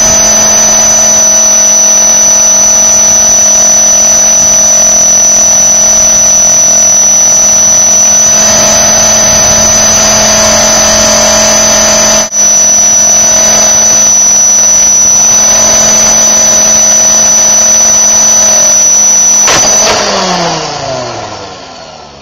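Blade 400 electric RC helicopter's motor and rotor running with a steady high whine, broken for a split second about halfway. Near the end the drive cuts and the whine slides down in pitch and fades as the rotor spins down.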